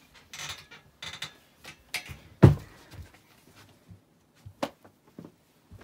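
Rustling of clothes and bedding with knocks on a metal loft-bed frame as someone climbs down from it, with one heavy thump about two and a half seconds in and a sharp knock near the end.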